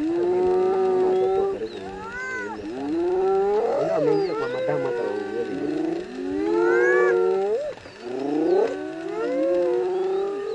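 Several spotted hyenas calling at once: overlapping high, wavering cries and whoops that rise and fall in pitch, continuing with only a brief dip near the end.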